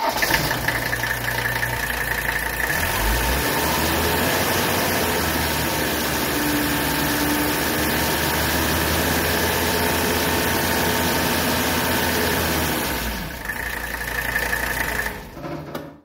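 A 1983 Mercedes-Benz 300D's OM617 five-cylinder turbo-diesel runs at a steady idle to circulate fresh oil after an oil change. The sound drops away about 13 seconds in, falling in pitch before it dies out near the end.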